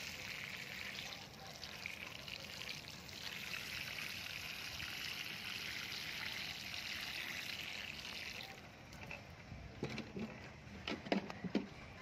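Water sprinkling from a plastic watering can's rose onto wet potting soil, a steady hiss that stops about two thirds of the way through. A few light knocks follow near the end.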